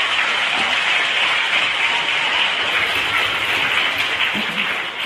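Audience of children applauding in a large hall, a steady dense clapping that begins to fade right at the end.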